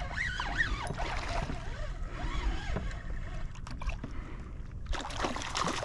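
Water and hull noise around a fishing kayak while a small speckled trout is hooked and reeled in on a spinning reel.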